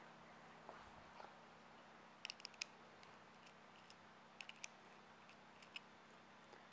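Faint, scattered small clicks of the hoist's metal lifting hook and strap hardware being handled while the lifting strap is readjusted, coming in a few quick clusters over a low steady hum.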